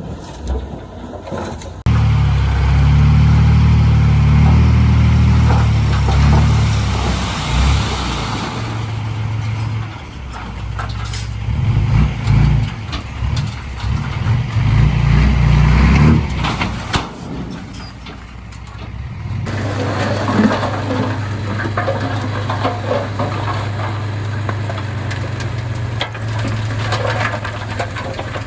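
Heavy diesel engine of earthmoving machinery running and working under changing load. A loud low engine note starts abruptly about two seconds in, with scattered clanks in the middle, and gives way to a steadier, lower hum about two-thirds of the way through.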